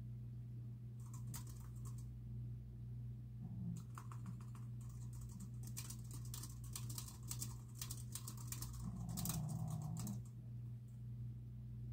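Typing on a computer keyboard: a short burst of key clicks, then a longer fast run of keystrokes that stops shortly before the end, over a steady low hum.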